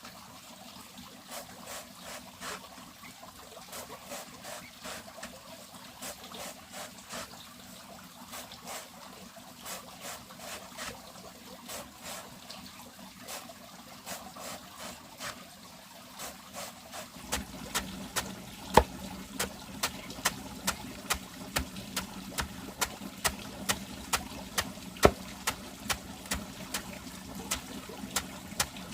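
A run of short, sharp taps or knocks, light and irregular at first. About halfway through they turn louder and evenly spaced, nearly two a second, and a low steady hum comes in with them.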